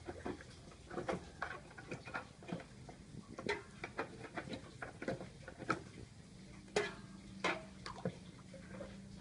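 Irregular light clicks and taps, several a second, with two louder knocks near the end. A faint low steady hum comes in about six seconds in.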